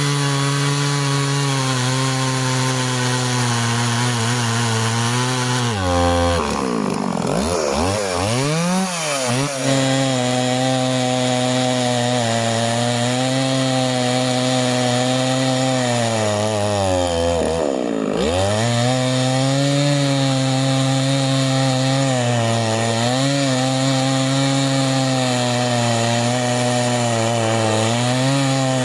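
Stihl two-stroke chainsaw running under load while cutting through wood, its engine pitch sagging as the chain bites. It bogs down deeply twice, about six to ten seconds in and again around eighteen seconds, and recovers each time.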